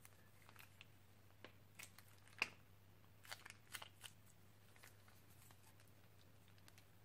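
Slime being squeezed out of a plastic piping bag onto a plate: faint, scattered sticky clicks and pops, with a sharper one about two and a half seconds in and a quick cluster around three and a half seconds.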